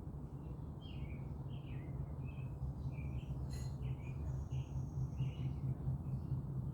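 Small birds chirping: a quick series of short chirps, about a dozen, with a thin high whistle held for about a second midway, over a steady low hum.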